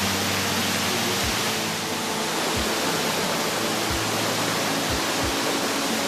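Steady rushing water under background music with sustained low notes and a soft low beat about once a second.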